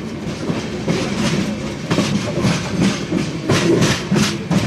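Indian Railways train passing, its wheels clattering over the rail joints in a run of repeated knocks over a low rumble.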